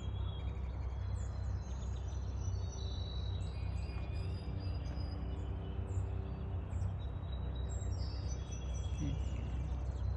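Small birds chirping and calling many times over a steady low rumble.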